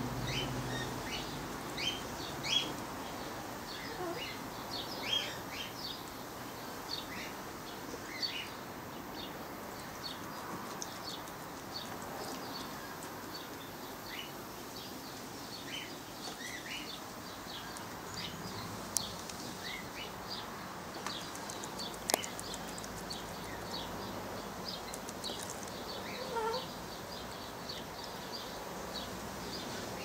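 Short, high bird chirps come again and again, at times several a second, over a steady hiss, with a few sharp clicks. Under them are the splashing and wing flutters of a young turquoisine grass parrot bathing in a shallow bowl of water.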